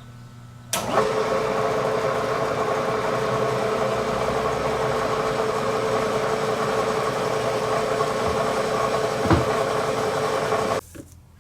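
Bridgeport milling machine motor switched on with a click, running steadily with a steady hum, then stopping abruptly near the end. A single brief knock is heard shortly before it stops.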